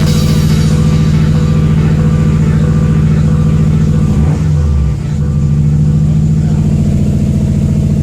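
2002 Subaru WRX's turbocharged flat-four engine idling, its speed dipping and wavering about four to five seconds in before settling again. The unsteady idle is one the owner puts down to the idle air control valve or something in the intake system.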